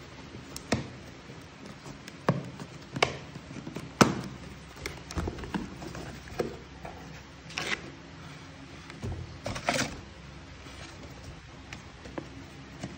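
Cardboard packaging being opened and handled: scattered taps, knocks and scrapes of box flaps and card, the loudest knock about four seconds in, with a short stretch of rustling around nine to ten seconds.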